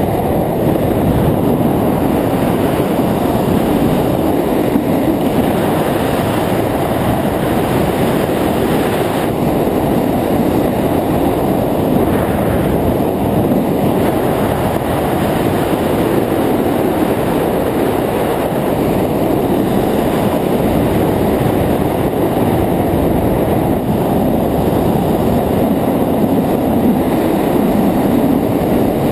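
Steady wind rushing over the microphone of a head-mounted camera during a parachute descent under an open canopy, a loud, even rumble with no pauses.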